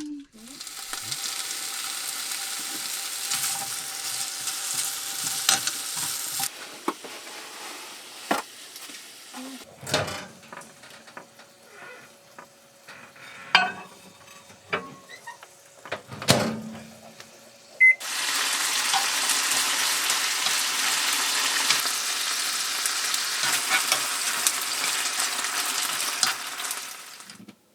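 Food sizzling as it fries in a pan, in two stretches of steady hiss, with a few knocks and clinks of utensils in the quieter stretch between them.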